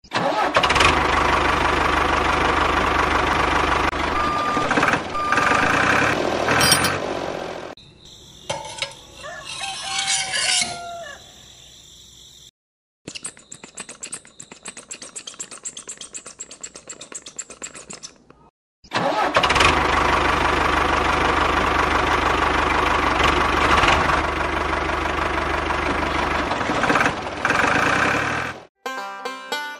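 Engine sound with a steady low hum, running in two long stretches. In the middle a shorter, changing sound gives way to a quieter, fast, even ticking before the engine sound returns.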